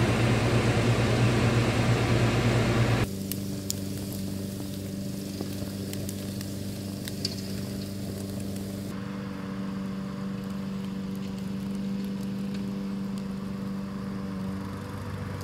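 Steady hum of a camper trailer's air conditioner. After about three seconds it cuts off abruptly to a quieter steady low drone with a few faint clicks.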